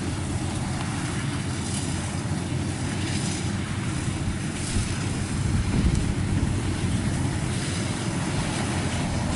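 Kubota rice combine harvester's diesel engine running steadily as it cuts through the paddy, with wind buffeting the microphone.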